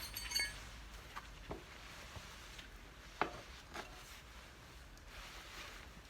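A few light taps and clicks from handling work, spaced irregularly over faint background hiss.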